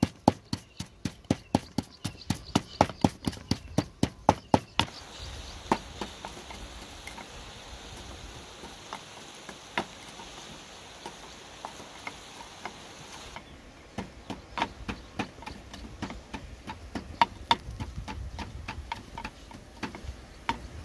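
Wooden pestle pounding red chilies in a wooden mortar: quick, even knocks about four a second for the first five seconds, then slower, softer strokes, picking up again into a quicker run in the second half.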